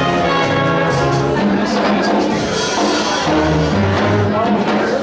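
A big band playing jazz live: the saxophone and brass sections sound chords over a stepping bass line and drums with a steady cymbal beat.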